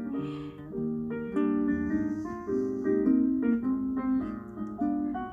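Background piano music: a melody of steady notes changing every fraction of a second.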